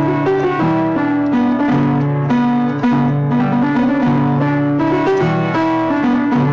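Instrumental music without singing: held keyboard chords changing about every second, with guitar.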